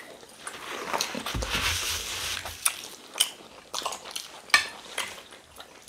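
Eating sounds: chewing and handling food. In the second half, several sharp clinks of metal cutlery against a glass serving dish.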